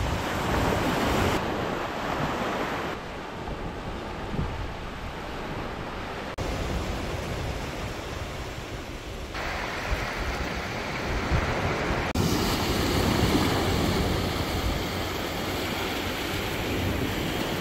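Small surf waves breaking and washing up the beach, with wind on the microphone; the sound changes abruptly several times.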